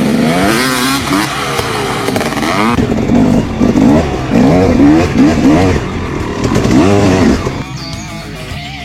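Motorcycle engine sound revving up and down in repeated swoops of pitch, as if accelerating and easing off several times.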